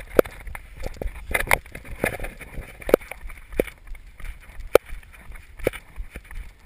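Footsteps on a paved road: sharp, irregular slaps about once a second, with wind rumbling on the microphone.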